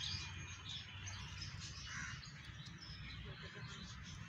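Faint bird chirps over a steady low rumble.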